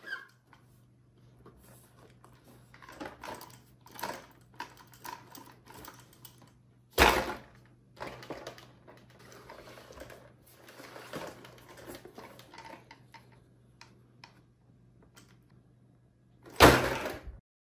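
Plastic-bodied Overmax X-Hooligan 1:10 RC truck handled on a wooden table: scattered light clicks and rattles, with two loud knocks, one about seven seconds in and one near the end.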